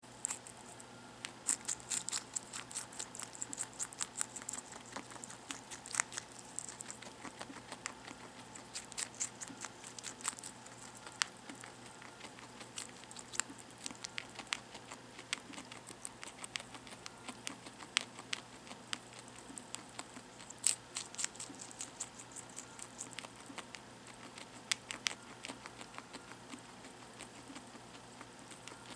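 A guinea pig biting and chewing a strawberry held out on a fork: quick runs of small chewing clicks, with short pauses between the runs.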